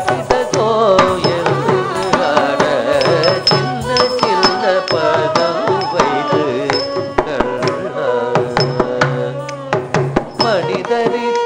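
Carnatic music in raga Kaapi set to Adi tala: a gliding, ornamented melody over frequent hand-drum strokes, accompanying a Bharatanatyam dance.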